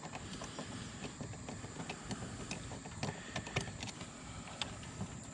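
Scattered light clicks and taps of plastic and metal parts being handled as a mass airflow sensor is unclipped and removed from a BMW engine's intake.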